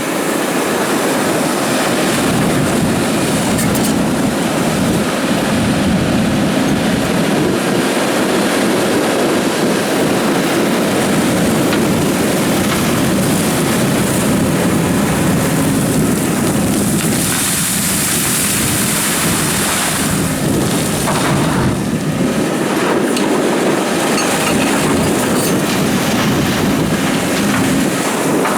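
Doosan DX300 hydraulic excavator working as it digs gravel: the diesel engine and hydraulics run steadily under load, with gravel grinding and rattling against the bucket. A brief high hissing rush comes about two-thirds of the way through.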